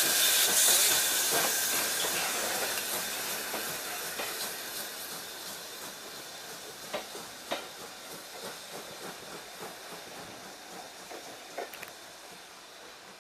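BR Britannia-class Pacific steam locomotive 70013 Oliver Cromwell pulling away with its train, steam hissing loudly at first and fading steadily as it recedes. In the second half the coaches' wheels clack over rail joints.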